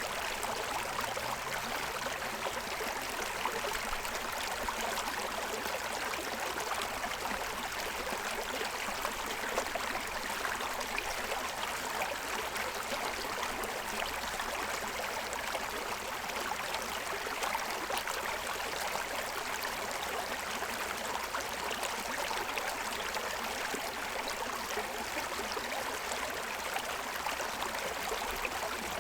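Shallow stream running and splashing over the stones of its bed, a steady rush of water with no change in level.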